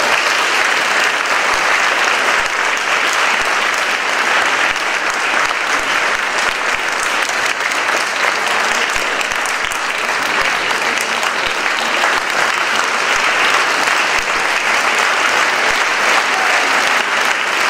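Audience applauding steadily, a dense, even clapping that does not let up.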